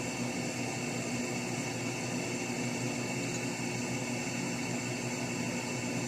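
Steady mechanical hum with several constant tones, unchanging throughout.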